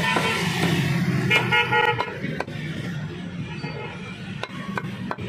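A vehicle horn honks in short repeated beeps in the first two seconds, over a steady low traffic hum. The sound then drops quieter, with a few sharp knocks about a second apart.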